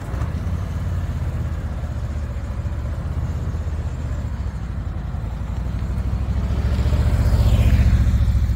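Cruiser motorcycle engine running as the bike rides by, a low, closely pulsing exhaust note that grows louder toward the end.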